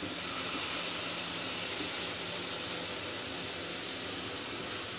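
Jalebi batter frying in hot oil in a kadai: a steady sizzle, with a faint low hum underneath.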